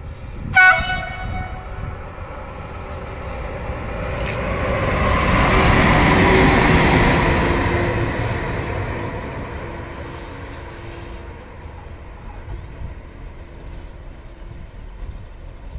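Two coupled Trenitalia E.412 electric locomotives running light through a station. A short horn blast comes about half a second in, then the wheel and running noise of the pass builds to its loudest around six to seven seconds and fades away.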